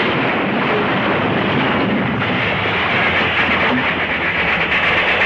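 Recorded steam train running on the rails: a steady, loud rushing rattle.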